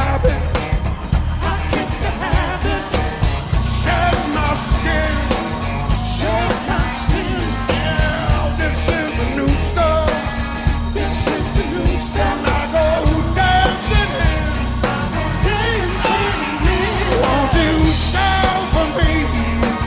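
A live rock band playing, with a singer's voice over a steady drum beat.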